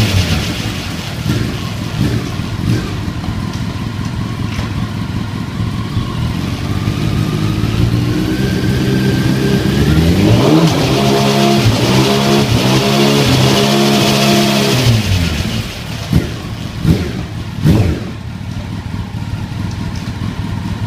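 Honda CBR954RR Fireblade's inline-four running on a rear paddock stand through an Akrapovic exhaust, with a rising whine in the first half. About ten seconds in the revs climb and step back repeatedly as it shifts up through the gears on the quickshifter, then it drops to idle and is blipped sharply three times near the end.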